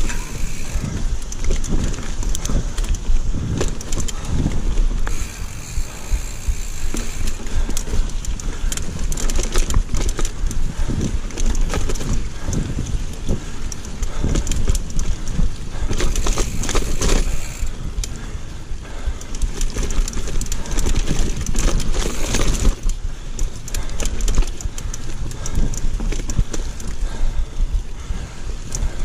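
Giant mountain bike ridden over rough dirt singletrack. Tyres rumble on the ground, and the frame and chain clatter irregularly as the bike rolls over roots and rocks.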